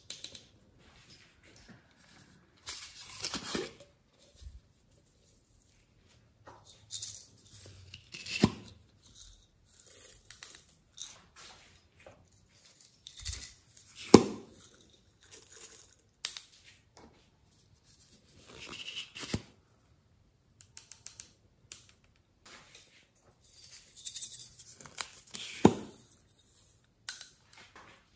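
Sequins and glitter shaken and tipped out of small plastic containers into a glass dish: short rustling pours in separate bursts, with sharp clicks and taps of the plastic containers being handled, the loudest click about halfway through.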